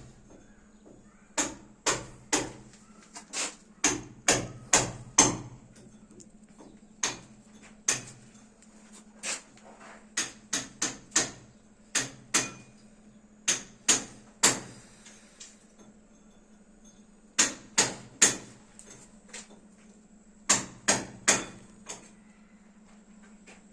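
Hammer blows, about thirty sharp strikes in irregular bursts of two to five with short pauses between, over a steady low hum.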